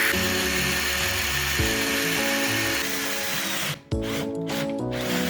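Makita HP330D cordless drill boring an 8 mm wood bit into ipê hardwood in its low speed gear, a steady whirring hiss that fades about three seconds in. Background music with a moving bass line plays throughout.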